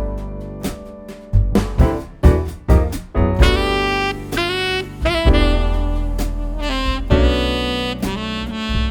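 Background music: jazz with a saxophone carrying the melody over drums.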